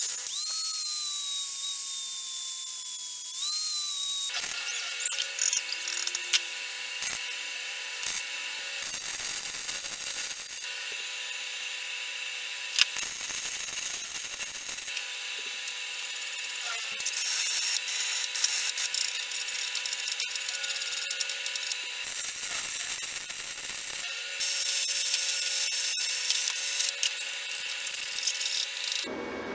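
An angle grinder with a sanding disc runs at speed, its whine sinking slowly in pitch as metal is held against the disc and rising again when it is eased off, about four seconds in. It is followed by a string of abruptly cut shop-tool sounds as a steel flange is welded and then worked by hand.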